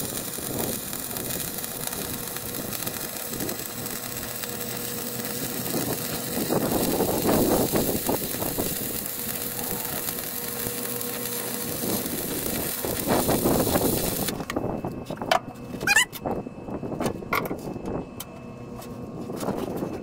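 Stick-welding arc on a 7018 electrode, crackling and hissing steadily as a cap pass is run around a steel pipe-to-deck weld. The arc cuts off suddenly about fourteen seconds in, followed by a few clicks and knocks.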